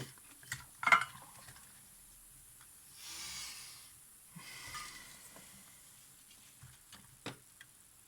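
Flux sizzling briefly as a hot soldering iron is pressed to solder wick on fine flex-cable contacts, a hiss lasting about a second in the middle followed by a weaker one. A few sharp taps of the tools on the camera come before and after it.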